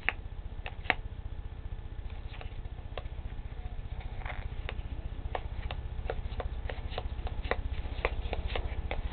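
Trading cards being thumbed through one at a time from a freshly opened pack: a string of light card flicks and snaps that come faster in the second half, over a low steady hum.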